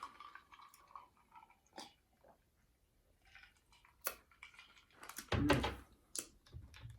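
Close-up chewing of a crispy fried chicken sandwich: soft wet mouth sounds with scattered sharp clicks and one louder mouthful about five seconds in.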